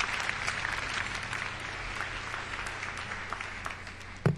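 Large audience applauding, the clapping slowly dying away. Near the end a single thump.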